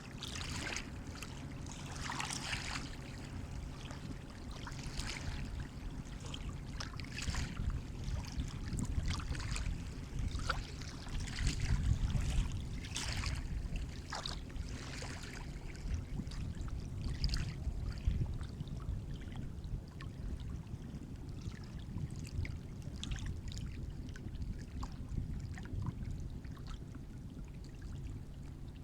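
Sea waves washing and splashing, with irregular short splashes of water over a steady low rumble.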